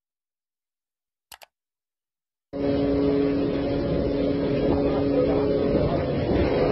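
Silence for about two and a half seconds with one faint click. Then a fishing boat's engine hums steadily under a constant rush of sea and wind noise on deck.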